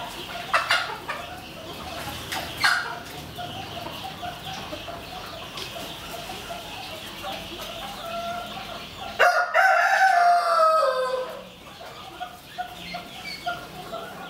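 White pheasants calling in their pen: two short sharp calls early on, then a loud crowing call about nine seconds in that lasts about two seconds and falls in pitch, with soft clucking between.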